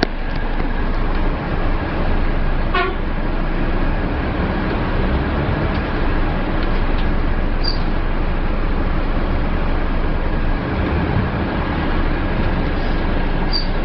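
Volvo B12B coach's diesel engine idling steadily, heard from inside the passenger cabin. A short horn toot sounds about three seconds in.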